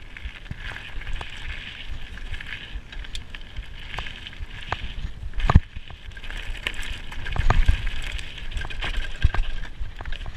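Mountain bike riding fast down a dirt trail: steady tyre and drivetrain noise with a low rumble, broken by frequent sharp rattles and knocks as the bike goes over bumps. The hardest knock comes about halfway through, with a run of louder ones shortly after.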